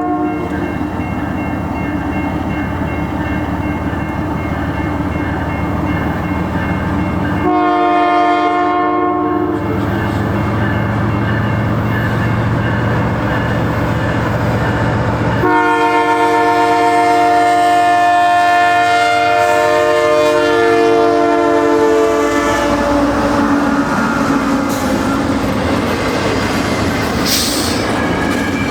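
CN freight diesel locomotive's multi-note air horn sounding for a grade crossing: a short blast about eight seconds in, then a long blast from about fifteen seconds whose pitch drops as the locomotive goes by. Under it the train rumbles and its cars clatter over the rails.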